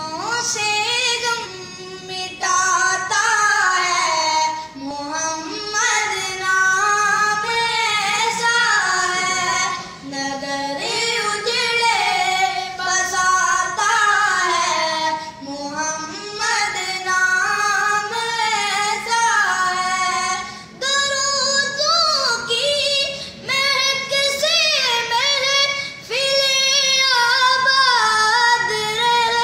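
A high voice singing a naat, an Islamic devotional song in praise of the Prophet, in long flowing phrases with short breaks between them.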